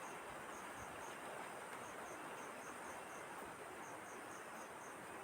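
Cricket chirping in short trains of four or five high pulses every second or two, over a steady background hiss.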